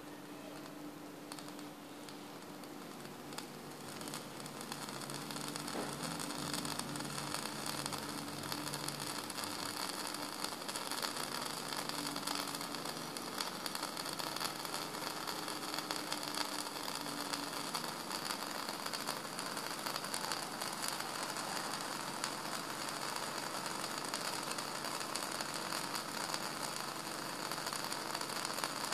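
Tin-can pop-pop boat, its flat diaphragm boiler heated by a tealight, putt-putting as a fast, even stream of clicks while steam pulses flex the diaphragm and drive water through its copper tubes. The clicking grows louder about four seconds in and then holds steady.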